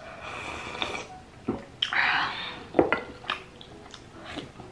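Dishes and cutlery clinking while eating: a few sharp clicks among two longer scraping noises, the louder one about two seconds in.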